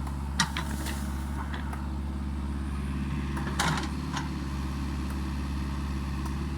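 Mini excavator's diesel engine running steadily, with a sharp crack about half a second in and a louder crack or knock about three and a half seconds in as it works the felled tree.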